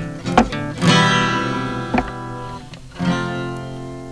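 Acoustic guitar strumming chords, each strum left to ring for a second or so before the next.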